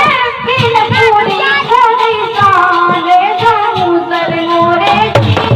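A woman singing a folk song in long, wavering held notes, with a steady drum beat underneath.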